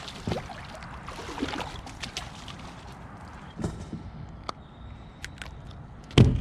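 Water lapping and sloshing against a kayak hull, with scattered small knocks and a loud thump near the end.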